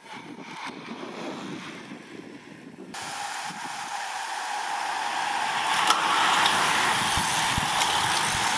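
A bunch of road-racing bicycles riding past: the steady hiss and whirr of tyres and freewheels. It starts faint, jumps up suddenly about three seconds in, and builds as the bunch approaches, with a few sharp clicks. Low thumps near the end sound like wind on the microphone.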